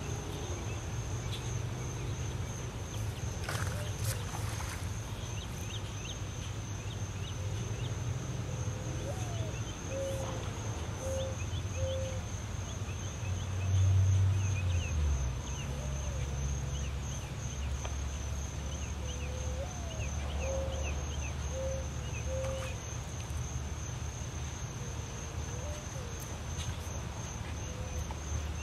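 Crickets trilling steadily on one high, pulsing note over a low hum, with scattered short calls now and then. A brief low rumble swells about halfway through.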